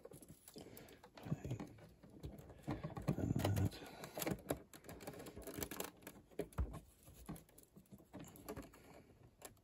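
LEGO plastic pieces being handled and fitted back into place: irregular light clicks and knocks of plastic on plastic.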